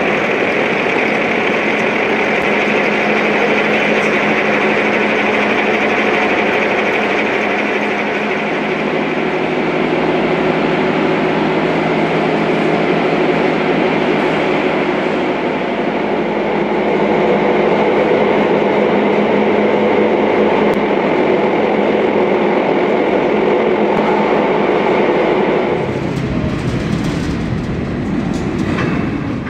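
Heavy electric lifting gear in a locomotive depot running steadily: a loud, continuous mechanical whine and hum with several held tones. The tone changes about 26 seconds in, and the sound cuts off suddenly at the end.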